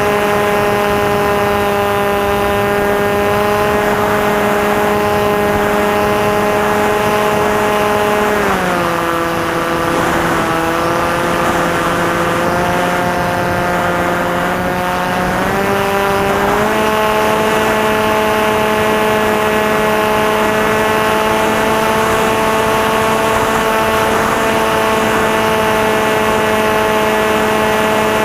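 Electric motor and propeller of a Maxi Swift FPV plane running steadily. The tone dips in pitch about eight seconds in as the throttle comes back, and rises again about sixteen seconds in.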